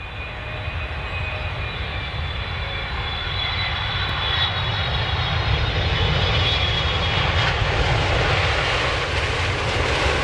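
Aircraft engine noise rising steadily in loudness, with a faint high whine over the first few seconds.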